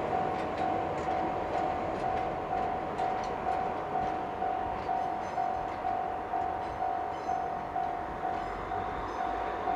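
Japanese level-crossing warning bell ringing steadily, about three dings a second, over the rumble of a passing train whose wheels click over the rail joints.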